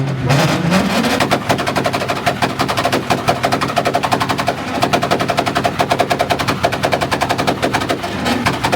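Import cars' engines revving up, then held on two-step launch-control rev limiters, the exhausts letting out rapid machine-gun-like bangs and pops many times a second.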